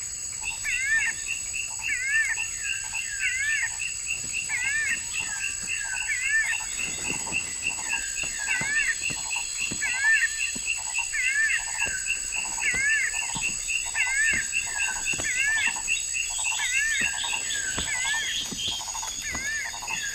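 Animal calls from a wild chorus, each with a quick up-and-down pitch, repeating about twice a second with short pauses, over a steady high whine and scattered clicks.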